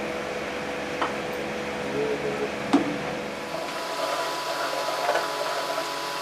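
A steel spoon stirring sugar into hot milk in a steel saucepan, with a few light clicks as the spoon touches the pan, over a steady background hum.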